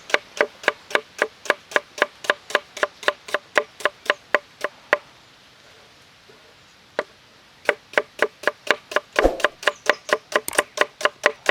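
Knife chopping rapidly on a wooden cutting board, about five strokes a second. It stops for a couple of seconds around the middle, then resumes.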